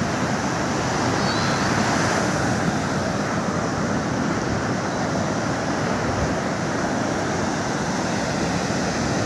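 Surf from a high, rough sea breaking on a sandy shore: a steady rush of waves.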